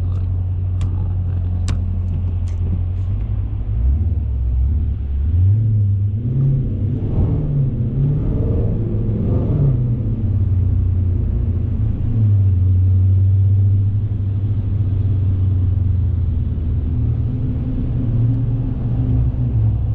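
Car engine and road noise heard from inside the cabin: a steady low drone, whose pitch climbs and dips between about four and ten seconds in as the car speeds up and eases off, then settles back to a steady drone. A few sharp clicks come in the first three seconds.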